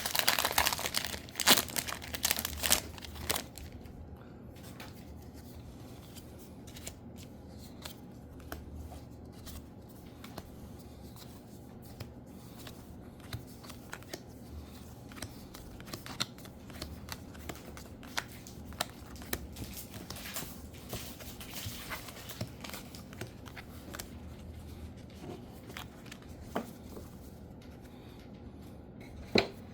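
Trading card booster pack wrappers crinkling and tearing open, loudest in the first few seconds. After that come quieter rustles and scattered light clicks.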